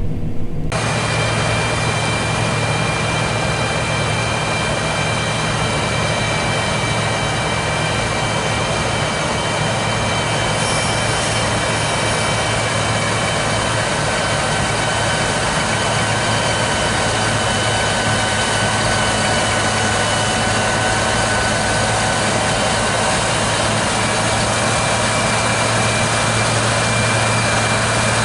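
Large diesel engine running steadily at constant speed, a low hum with several thin, steady high whines over it.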